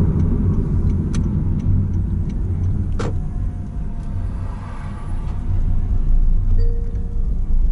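Steady low road and engine rumble of a car being driven, heard from inside the cabin, with two sharp clicks about one and three seconds in.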